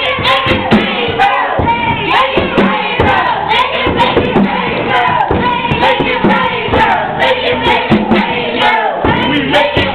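Instrumental backing track with a steady beat, with voices over it.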